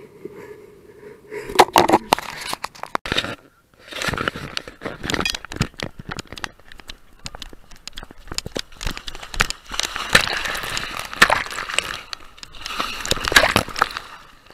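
Handling noise and water splashing on a hand-held action camera: a dense run of crackling, rubbing and knocking, louder about ten seconds in and again about thirteen seconds in.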